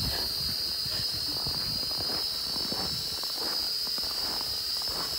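Small quadcopter drone's propellers whining steadily at a high pitch, with faint soft rustles underneath.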